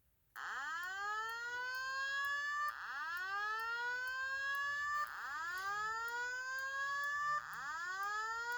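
Simplex voice-evacuation fire alarm speaker sounding a whoop tone. It starts about half a second in: a loud sweep that climbs fast from low and levels off high, restarting about every two and a half seconds, four times. This is the alert tone that comes before the spoken evacuation message.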